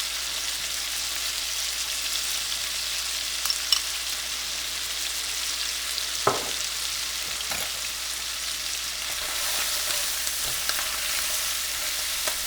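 Chicken pieces sizzling steadily as they fry in butter and olive oil with freshly added garlic. A few sharp clicks, two close together about three and a half seconds in and one near the middle, as the pan is stirred.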